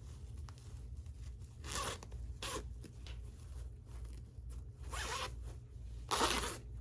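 A repaired dress zipper being zipped up and down in about four short strokes, the loudest near the end, showing that the slider now runs properly after the repair.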